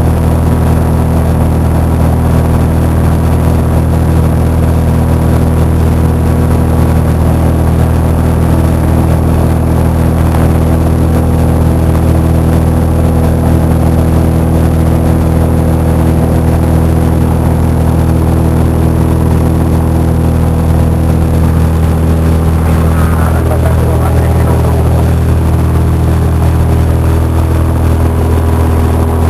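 Cessna 172's piston engine and propeller droning steadily in flight, with a slight shift in tone about two-thirds of the way through.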